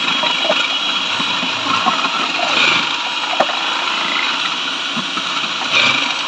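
Electric vegetable and meat chopper running steadily with a motor hum as it cuts onions. There are two short louder rushes, one about a third of the way in and one near the end.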